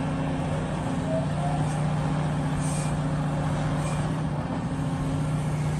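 Large hydraulic excavator's diesel engine running steadily under load while it digs, a constant low hum.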